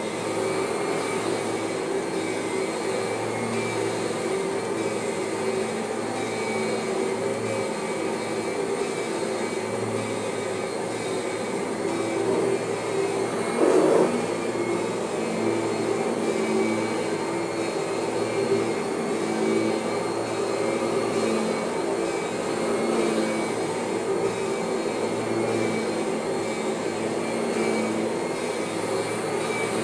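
Kirby vacuum cleaner running steadily, with the normal whine from its transmission mostly gone. A brief louder burst of noise comes about halfway through.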